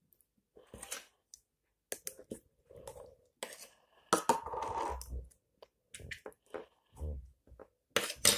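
Slime squelching and popping as fingers push it out of a plastic tub and handle it, mixed with clicks and knocks of the plastic tub on a wooden table, in irregular bursts.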